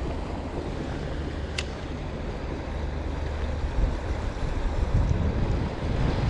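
Steady rush of flowing river water with wind buffeting the microphone, and a single sharp tick about a second and a half in.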